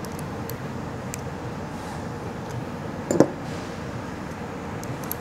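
A few faint metal clicks as a hex key turns the bolt of a thrust-bearing rivnut setting tool, pulling a nutsert tight in sheet steel. About three seconds in there is a single sharper metallic clink as the hex key and spanner are handled, over a steady low hum.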